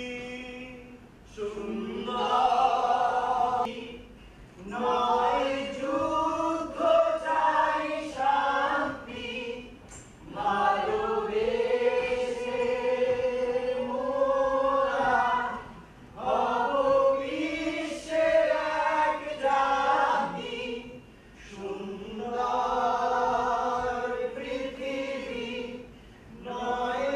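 A group of voices singing together in long, held phrases of several seconds, with short breaks between phrases.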